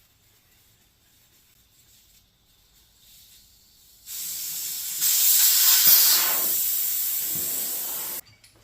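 Air hissing out of a Gehl 3310 skid steer tire as it is deflated, starting about four seconds in, growing louder a second later, then cutting off suddenly near the end.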